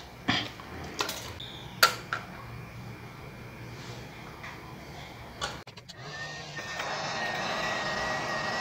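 A few light clicks and taps as the BGA chipset is set onto the laptop motherboard. From about six seconds in, a hot air rework gun blows steadily, a hiss with a thin steady whine, heating the chip to solder it down.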